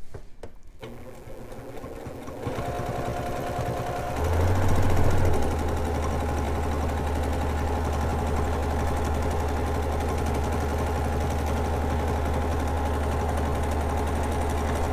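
Domestic sewing machine stitching a free-motion quilt: the motor starts about a second in and picks up speed, runs faster for a moment around four seconds in, then settles into steady stitching at an even speed.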